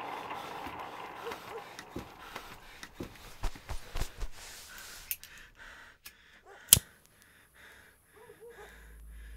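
Faint handling sounds and scattered small clicks, then one sharp metallic click about two-thirds of the way through as a flip-top lighter is struck and lit. A low steady hum comes in near the end.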